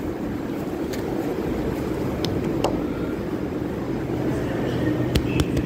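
Steady low rumble of metro station platform noise, with a few sharp clicks near the end.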